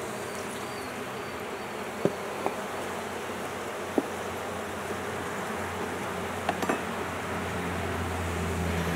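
Honey bees of a weak, queenless colony buzzing steadily around the opened hive, the hum growing a little louder in the second half. A few light clicks and knocks of wooden frames and the hive tool against the hive body.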